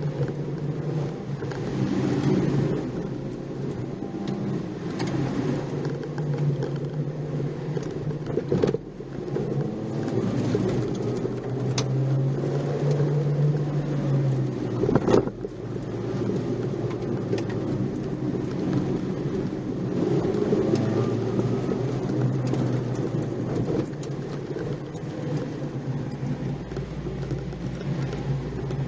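Nissan March 12SR's 1.2-litre four-cylinder engine heard from inside the cabin while driving, its revs rising and falling, over steady road and tyre noise. Two sharp knocks come partway through.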